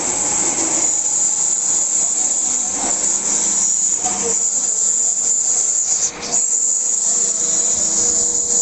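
Paddle feed mixer running on its 1.5 hp electric motor, the blades churning powdery feed mash: a loud, steady hiss with a faint steady hum beneath it, dipping briefly about six seconds in.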